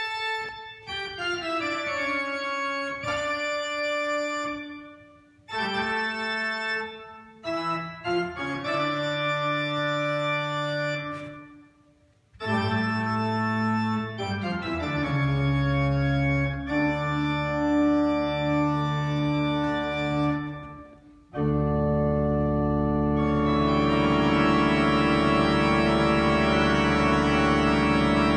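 Church pipe organ playing a series of held chords, broken by short pauses. Deep bass notes join about halfway, and the last several seconds are one long, full chord, the loudest part.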